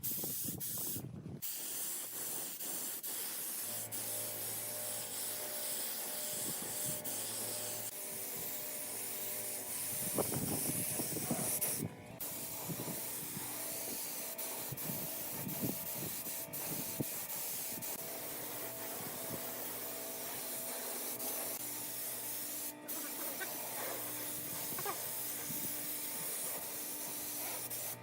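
Spray gun hissing steadily as it applies a finish coat to a wooden chair, broken by a few sudden short cuts.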